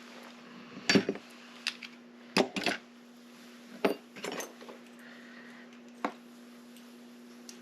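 Metal lock parts clinking and clicking as a door lock is handled and taken apart, about seven separate sharp knocks spread out, the loudest about a second in. A faint steady hum runs underneath.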